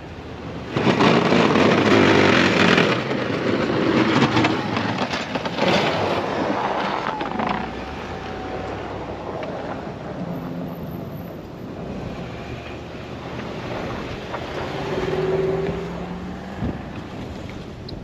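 Pickup truck with a front snow plow driving through a snowy lot, its engine running under a loud rushing noise for the first several seconds. The engine note swells briefly as the truck turns away near the end.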